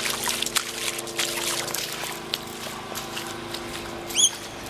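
Footsteps in flip-flops splashing through shallow floodwater on a road: irregular splashes and drips, over a steady low hum.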